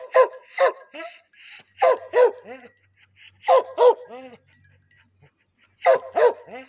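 A large dog barking in quick runs of two or three barks, a run about every two seconds.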